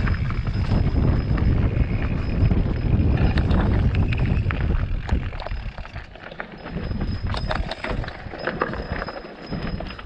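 Wind buffeting the microphone with a loud low rumble for about the first five seconds, then easing. Scattered crunches and knocks on stony ground follow.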